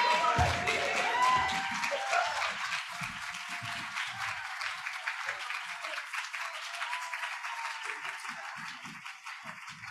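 Audience applauding, with a few whoops near the start, the clapping gradually dying away.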